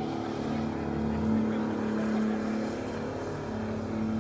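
Turbocharged RD28 straight-six diesel engine in a Nissan Silvia held at high revs during a burnout, a steady drone that sags slightly near the end before picking up again.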